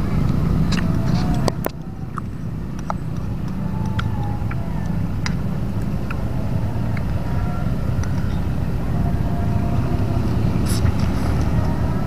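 Steady low engine rumble, with scattered light clinks of a metal fork against a ceramic bowl.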